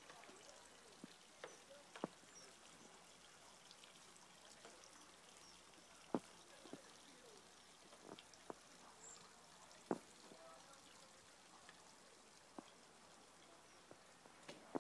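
Near silence: a faint steady outdoor hush with scattered, irregular drips of meltwater falling from snow-laden trees.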